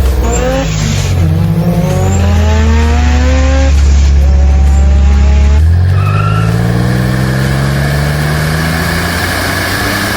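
Car engine accelerating hard through the gears: its pitch climbs, drops back at a shift about a second in and again just before the sixth second, then climbs again, over a steady hiss like tyre noise.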